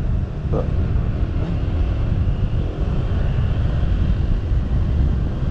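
Motorcycle running along on the move, heard as a steady low rumble mixed with wind on the microphone.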